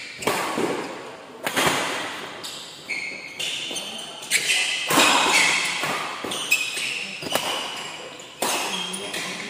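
Badminton rally: rackets striking the shuttlecock about once a second, with shoes squeaking on the court floor between shots, echoing in a large hall.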